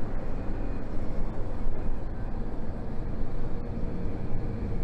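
Steady low engine and road rumble of a city bus, heard from inside the cabin while it drives along.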